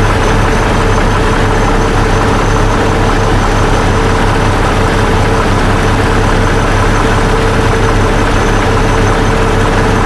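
2001 Jeep Grand Cherokee's 4.0L straight-six engine idling steadily. The engine has an intermittent misfire.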